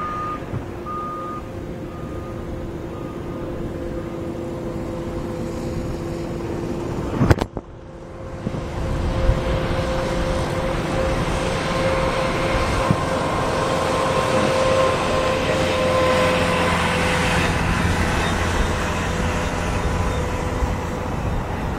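A steady hum with a few short, faint beeps in the first seconds. After a sudden break about seven seconds in, jet airliner engine noise builds up, with a steady whine over the noise, and stays loud to the end.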